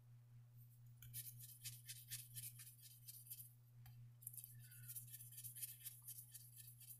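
Faint scratching of fine 2000-grit sandpaper rubbed back and forth by hand on a slipjoint pocketknife's metal, quick strokes about five a second, starting about a second in and pausing briefly near the middle. A steady low hum runs underneath.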